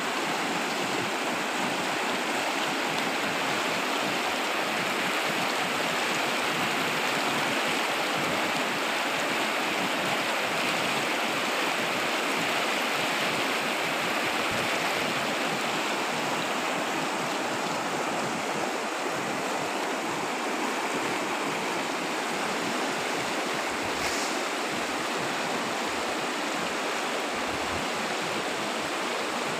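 Fast-flowing mountain river rushing over rocky rapids: a steady, unbroken whitewater rush.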